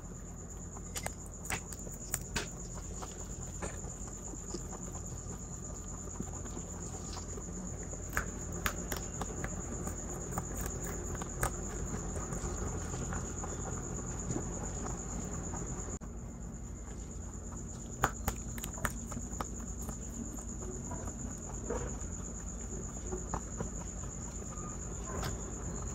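Two young rabbits chewing raw green beans close to the microphone, with irregular crisp crunches and snaps. A steady high-pitched whine runs under the chewing.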